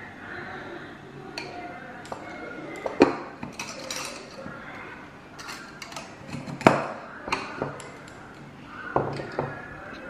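A spoon clinking and scraping inside a ceramic canister, then the canister's ceramic lid set down and its wire clamp snapped shut, giving a run of sharp clinks and knocks, the loudest about two-thirds through.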